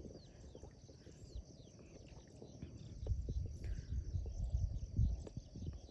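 Outdoor marsh ambience: scattered short bird chirps over a steady faint high insect drone, with a low rumble on the microphone that swells from about halfway through.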